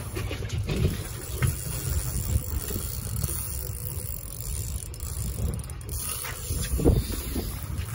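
Daiwa spinning reel being cranked against a fish, its gears whirring and rattling, over an uneven rumble of wind on the microphone, with a few handling knocks.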